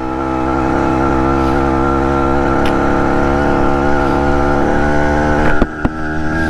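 BT100 motorized-bicycle engine running steadily while riding, its level building over the first second. About five and a half seconds in it briefly dips, with a couple of sharp clicks.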